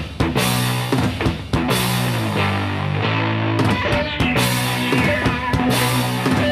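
Rock music with drum kit and guitar.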